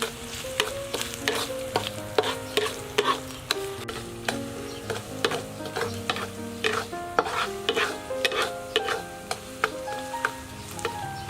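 Stir-frying in a pan: a spatula scrapes and knocks against the metal in quick, irregular strokes while the food sizzles in hot oil.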